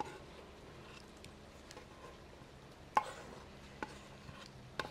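Kitchen knife scraping and knocking on a wooden cutting board as diced pineapple is pushed off it into a blender jar: a few sharp knocks, the loudest about three seconds in.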